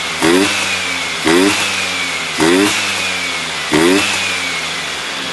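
Tuned 90 cc PTS motorcycle engine running, its throttle blipped four times at about one-second intervals, each rev rising and then falling back toward idle.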